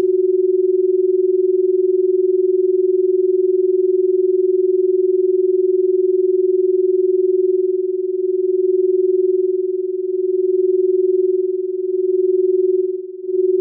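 An electronically generated steady pure tone at one mid-low pitch, held with no other sound. About halfway through, its loudness begins to swell and fade slowly, about every two seconds, dipping deepest near the end.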